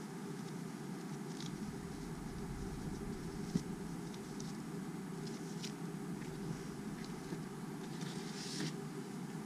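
Soft rustling and light knocks of cloth drawstring pouches and cardboard packaging being handled, with one sharper click about three and a half seconds in and a brief rustle near the end, over a steady low hum.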